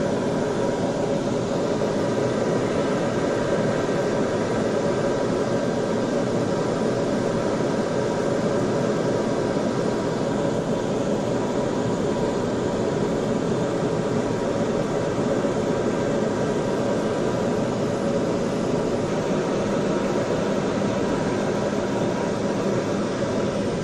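Turboprop engine and propeller running steadily, heard from inside the aircraft cabin: a constant drone with several steady whining tones.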